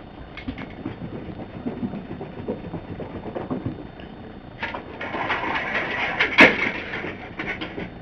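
Small dog scrambling on carpeted stairs during a game with clothes hangers, with light clicks of the hangers, a busier stretch of scrabbling about five seconds in and one sharp clack just after the middle of it.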